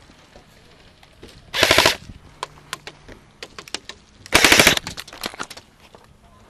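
Airsoft gun firing two short full-auto bursts about three seconds apart, each a rapid, even rattle of shots lasting about half a second, with scattered single shots or clicks in between.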